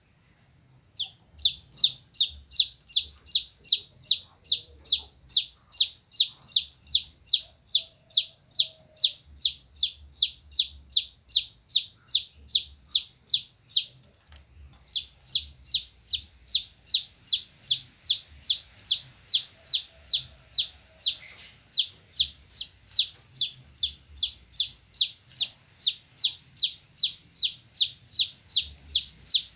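A chicken chick peeping over and over, a run of loud, high, falling peeps about two to three a second, broken by a pause of about a second halfway through.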